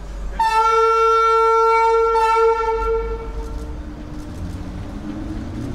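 Berlin S-Bahn class 485 train sounding one long single-note horn blast of about two seconds, which rings on in the station hall as it fades. A low rumble of the train running in grows afterwards.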